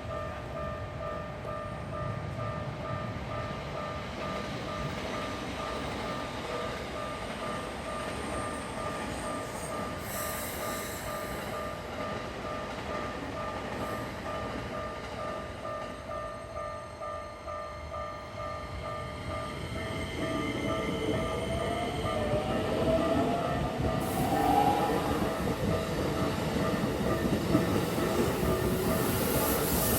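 Japanese level-crossing warning bell ringing in a steady two-tone pulse while a Keikyu train approaches and passes. From about twenty seconds in the train gets louder, with a rising motor whine and rail rumble.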